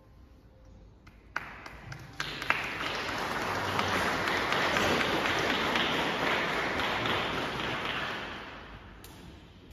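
Audience applause: a few single claps about a second in, building quickly into steady clapping that dies away near the end.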